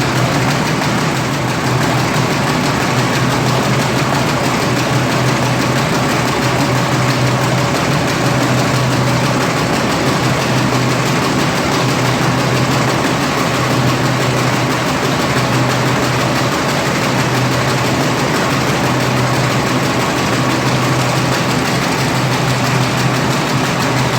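Perforated paper bag making machine running steadily: an even, loud mechanical noise over a constant low hum.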